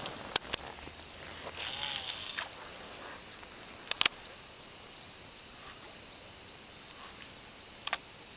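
A steady, loud, high-pitched chorus of insects, with a few sharp clicks: two about half a second in, one near four seconds and one near the end.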